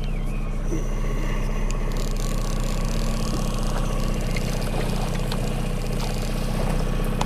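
Boat's outboard motor idling at trolling speed, a steady low hum.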